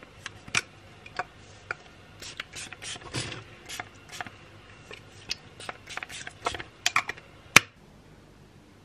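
Close-up handling of a plastic spray bottle: irregular sharp clicks and taps from its cap and pump, with a few short spritzes of mist. The loudest, sharpest click comes near the end.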